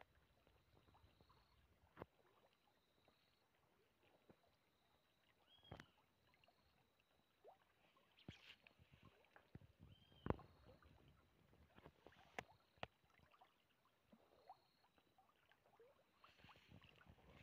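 Near silence, broken by a few soft clicks and knocks scattered through it, the loudest about ten seconds in.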